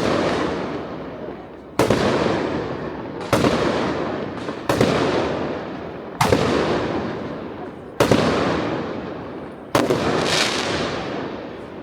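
Aerial firework shells bursting: about seven sharp booms, roughly one every one and a half seconds, each trailing off in a long fading rumble.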